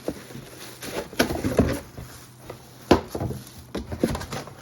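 Hands handling the parts and packaging of a toothbrush holder: a few sharp clicks and knocks, the loudest about three seconds in.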